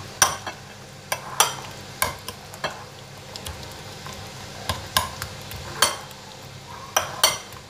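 Metal spoon mashing soft cooked pumpkin in a ceramic bowl, clinking sharply against the bowl about a dozen times at irregular intervals.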